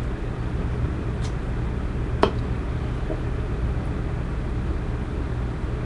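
A steady low hum, with one sharp click about two seconds in.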